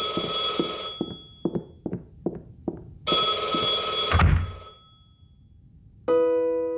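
Cartoon vacuum cleaner running with a steady hiss and whine, cut off about a second in, followed by a quick run of short blips falling in pitch. The vacuum runs again for about a second and stops with a dull thud. Near the end a sustained orchestral string chord begins.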